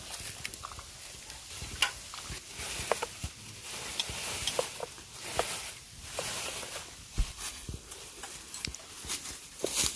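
A metal ladle clinking and scraping against a metal pot as soup is stirred and scooped, with small liquid splashes and many scattered clicks.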